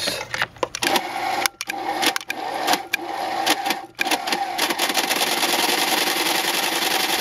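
Thompson walking-foot semi-industrial sewing machine running, first in a few short stop-start runs, then running steadily at speed with a fast, even clatter from about four and a half seconds in.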